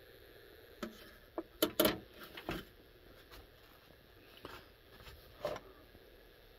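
Clicks and knocks of a computer circuit board being lowered and set down onto a metal card cage: a cluster of sharp knocks about one to two and a half seconds in, then two lighter taps later.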